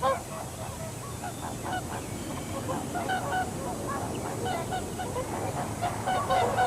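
A flock of wild geese calling, many short honks overlapping continuously.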